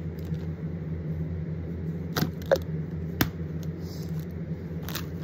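Small toys and packages being handled and set down: a few sharp clicks and taps, the loudest a little past halfway, over a steady low hum.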